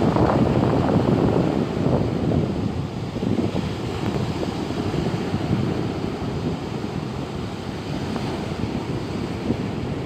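Sea surf breaking and washing up onto a sandy beach, with wind buffeting the microphone. Loudest in the first couple of seconds, then easing slightly.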